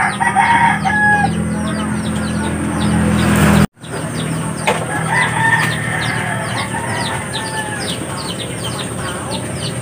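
Chickens in the background: a rooster crowing, with calls near the start and again from about five to seven seconds, over a steady patter of quick high chirps. The sound cuts out for a moment a little before four seconds.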